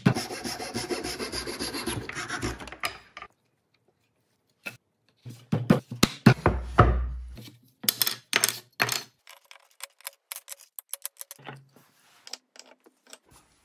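A hand rubbing briskly back and forth over a wooden board in quick strokes, then more rubbing and handling with a low thump about six to seven seconds in. Later comes a string of light clicks as metal drill bits are set into holes in a wooden rack.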